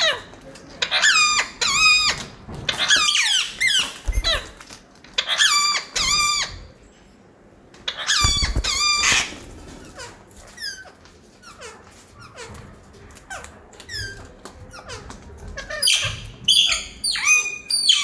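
Caged birds calling: loud, whistle-like calls that bend up and down in pitch, coming in clusters of two or three, with fainter calls in a quieter stretch in the middle.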